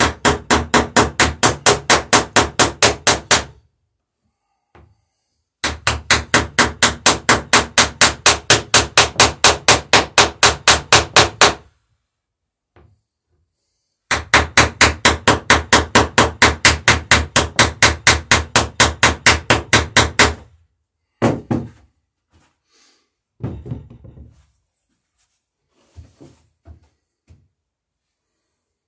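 Ball-peen hammer peening rivets in a wooden dory's lapped planking: three runs of quick, even blows, about five or six a second, each lasting several seconds, followed by a few scattered knocks near the end.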